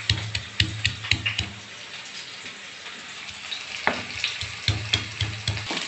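Sliced onions frying in oil in a steel kadai, a steady sizzle as they turn light brown, with sharp knocks and scrapes as a wooden spatula stirs them against the pan.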